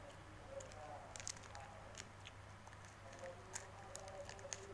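Scattered faint crackles of a Beng-Beng chocolate bar's wrapper being handled, then a bite into the bar near the end, over a steady low hum.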